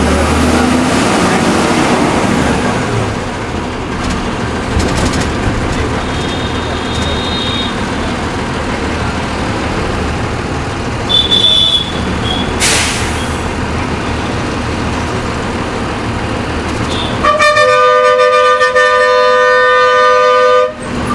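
Road noise of a moving vehicle in city traffic, with two short horn toots partway through. Near the end a loud horn with several tones at once is held for about three and a half seconds, then cuts off.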